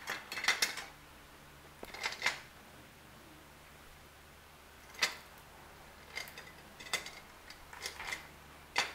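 Tangled silver jewelry (bangles and earrings) clinking and knocking together as it is handled, in scattered short metallic clicks with pauses between: a cluster at the start, another about two seconds in, and several more in the last four seconds.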